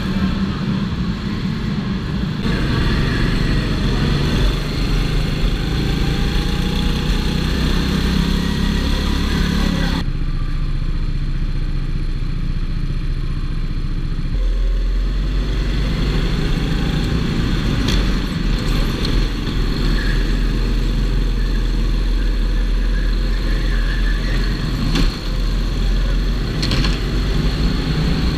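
Go-kart engine running continuously at racing speed, heard from a camera mounted on the kart, with a few brief knocks.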